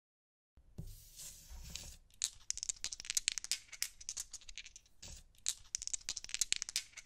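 Dice-rolling sound effect: a rapid clattering rattle of many small clicks as the dice tumble, in two runs with a short break about five seconds in.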